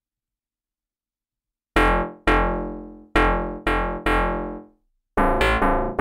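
ReFX Nexus 2 software synth playing its 'BA DX Synth Bass' preset, a DX7-style FM synth bass. It plays a phrase of short plucked notes, each dying away quickly. The notes begin after almost two seconds of silence: five spaced notes, a brief pause, then a quicker run near the end.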